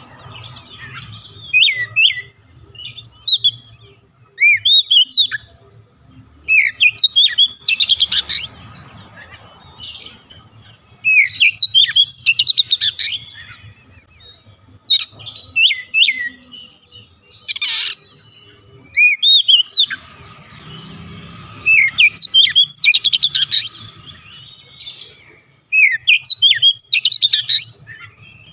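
Oriental magpie-robin singing: about ten loud bursts of sweeping whistles and quick chattering notes, each about a second long, with short pauses between.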